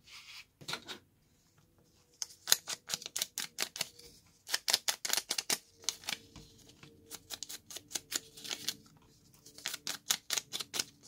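Quick, light tapping of a foam ink dauber dabbed on a stamp ink pad and around the edges of a vellum image to stain them with ink. The tapping comes in two runs of several taps a second, the first starting about two seconds in.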